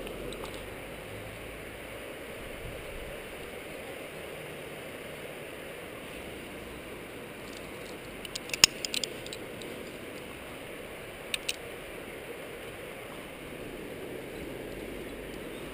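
Steady wind noise on a helmet-mounted camera's microphone. About halfway through comes a quick cluster of sharp clicks, one much louder than the rest, and two more follow a second or so later.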